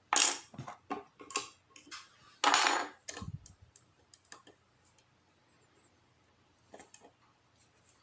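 Metal lock-picking tools and the padlock clinking and rattling in hand during picking: two louder clattering bursts, near the start and about two and a half seconds in, with scattered small clicks between and after.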